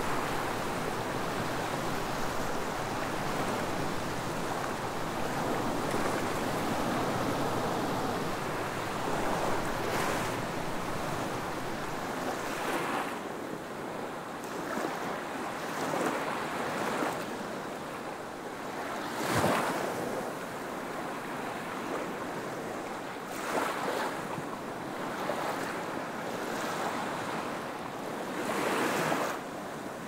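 Small ocean waves washing up on a sandy beach: a steady rush of surf for about the first twelve seconds, then separate waves lapping ashore every few seconds, the loudest a little past halfway.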